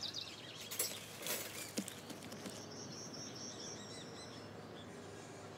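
Koala scrambling out of a wire cage trap onto a tree trunk: a few short scrapes and knocks within the first two seconds, against quiet bush ambience. A high, wavering call follows in the background.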